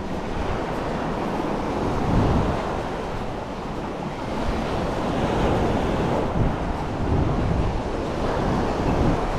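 Sea waves washing onto a sandy beach, the surf rising and falling in swells, with wind rumbling on the microphone.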